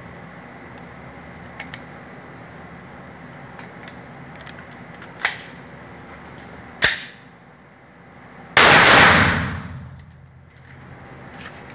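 Glock G25 pistol (.380 ACP) firing three shots: a lighter crack about five seconds in, a sharp shot just before seven seconds, and the loudest shot about eight and a half seconds in, which fades out over about a second.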